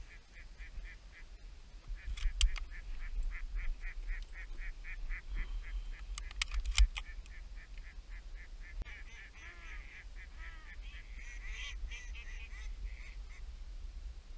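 Waterfowl calling: a steady run of short calls, about four a second, with ducks quacking in the second half. Sharp cracks cut in about two seconds in and again, loudest, near seven seconds in.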